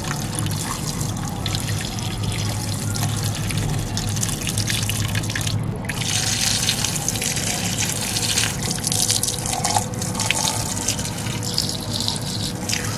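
A jet of water sprays onto a toy tractor, splashing and dripping onto wet ground. The spray breaks off for a moment about halfway through, then carries on.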